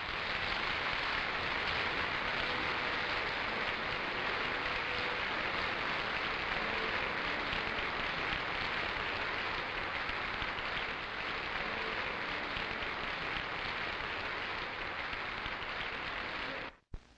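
Audience applauding steadily at the end of a piece, cut off suddenly near the end.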